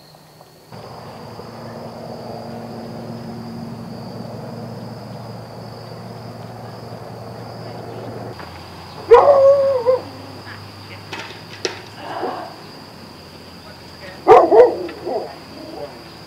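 Two loud animal calls, each about a second long with a wavering pitch, about nine and fourteen seconds in, with shorter calls between, over a steady low hum that drops away just before the first call.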